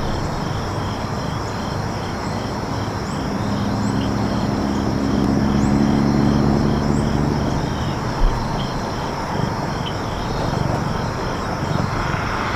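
Crickets chirping steadily in a regular pulsing rhythm over outdoor ambience, with the low drone of a distant engine swelling through the middle and fading out. A single short thump about eight seconds in.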